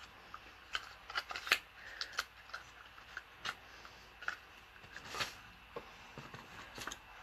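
Products and packaging being handled: a string of light clicks and short rustles at irregular intervals, a couple of them louder.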